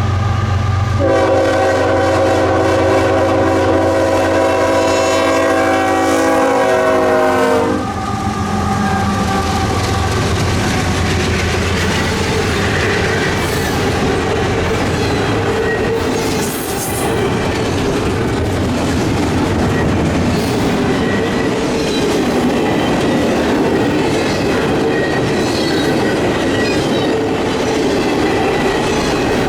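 A locomotive's air horn sounds one long chord for about seven seconds over the low hum of its diesel engine, dropping slightly in pitch as it passes. Then the train's cars roll by with a steady rumble and the clickety-clack of wheels over the rail joints, with faint wheel squeal.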